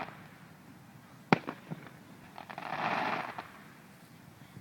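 Aerial fireworks going off: one sharp bang about a second in, followed by a few smaller pops, then a hissing rush lasting about a second.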